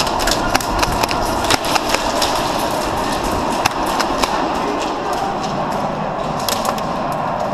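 Airsoft gunfire in an indoor arena: scattered sharp pops and clicks at irregular intervals, thicker in the first few seconds, over a steady background of noise.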